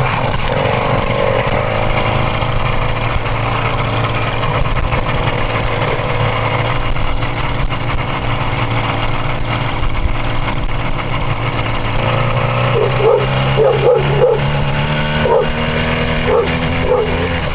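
Small 66cc two-stroke motorized-bicycle engine running steadily at low speed. In the last few seconds a dog gives a series of short, high whines or yips over it.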